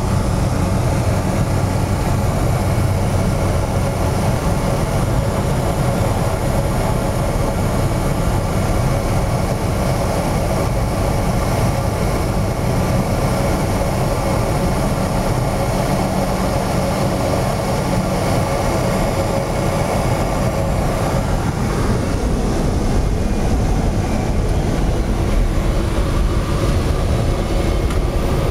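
Cessna 208 Caravan's PT6A turboprop engine and propeller droning steadily in flight, heard from inside the cockpit. The tone of the drone shifts slightly about twenty-one seconds in.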